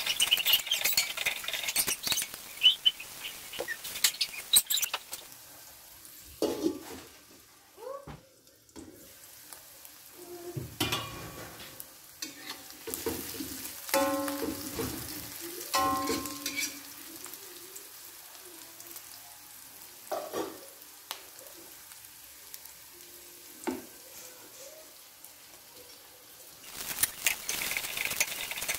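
Sliced onions sizzling in hot oil in a metal wok, stirred with a metal spatula that scrapes and clinks against the pan. The sizzle dies down after the first few seconds and comes back strongly near the end, with rice in the wok being stir-fried.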